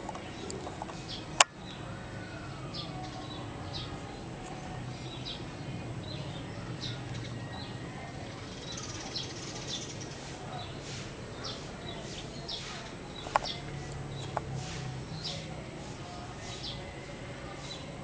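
Outdoor ambience with a bird giving short, high chirps over and over, over a low steady rumble. A sharp click sounds about a second and a half in, and a smaller one comes later.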